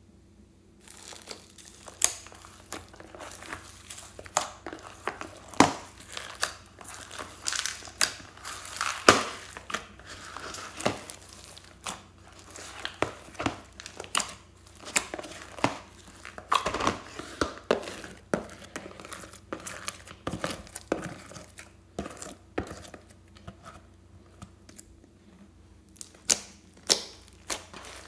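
Slime with foam beads and glitter being kneaded and stretched by hand: wet squishing with frequent, irregular sharp pops and crackles, starting about a second in.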